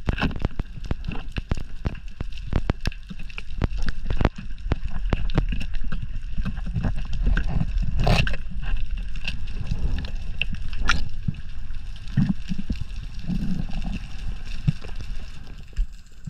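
Underwater noise picked up by a diver's camera as a spearfisher works a speargun into a rock hole: a low rush of water with many sharp clicks and knocks, the loudest knocks about eight and eleven seconds in.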